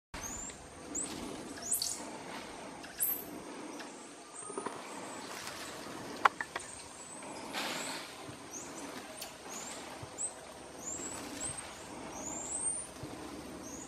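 Bolivian squirrel monkeys giving many short, high-pitched rising chirps, scattered irregularly. Brief rustles of foliage come in between, and there is a single sharp snap about six seconds in.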